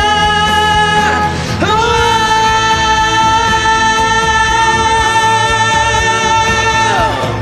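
A singer holds long notes over a pop ballad backing. The first held note breaks off about a second in. The voice then slides up into a second long note, held for about five seconds, that falls away near the end.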